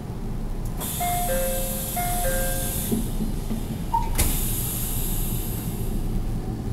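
Door operation aboard a JR Central 313 series electric train: a falling two-note chime sounds twice over a sudden hiss of compressed air. A short beep and a sharp thud come about four seconds in, then another long hiss of air, over the train's steady low hum.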